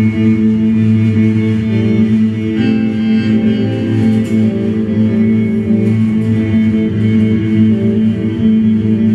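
Live experimental improvisation by electric guitar, six-string bass and drums: a droning passage of held, overlapping notes that shift to new pitches about two and a half seconds in.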